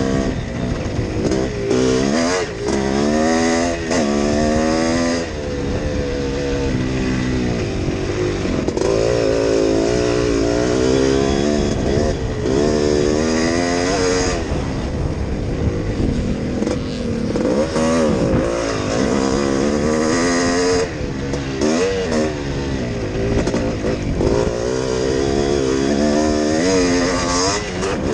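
Yamaha YZ465G two-stroke single-cylinder motocross engine under hard riding, its pitch repeatedly climbing as the throttle is opened and dropping back at gear changes and on and off the throttle.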